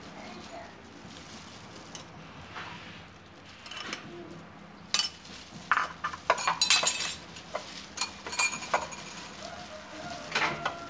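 Disposable plastic gloves crinkling and rustling as hands rub marinade over a whole raw chicken. From about five seconds in, the crinkling turns loud and crackly, with sharp clicks.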